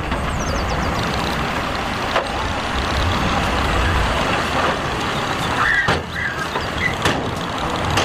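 Shacman dump truck running with its bed raised, tipping a load of rock, heard as a steady rushing rumble with a few sharp knocks.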